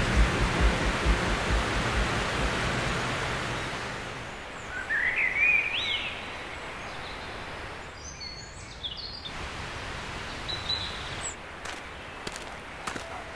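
Stream water rushing over rocks, fading out over the first four seconds into quiet woodland ambience. Birds call over it: a rising chirping phrase about five seconds in, then short high chirps around eight to eleven seconds, with a few faint clicks near the end.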